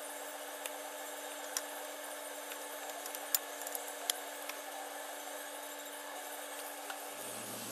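A handful of sharp metallic clicks as the cam chain and sprocket of an ATV engine's cylinder head are handled, the loudest about three and four seconds in, over a steady hum and hiss.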